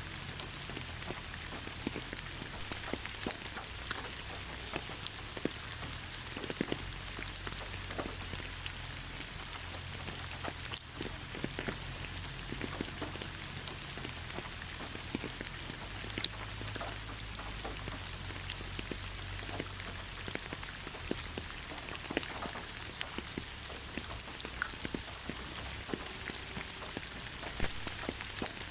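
Steady rainfall: an even hiss, with many individual raindrops ticking on a surface at random.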